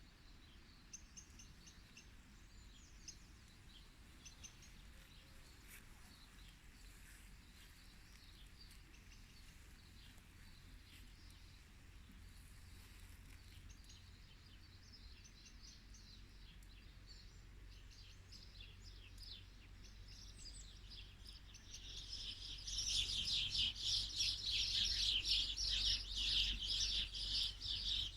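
Small garden songbirds chirping and twittering, scattered and faint at first, then a loud, dense chorus of rapid chirps from about two-thirds of the way in. A steady low hum runs underneath.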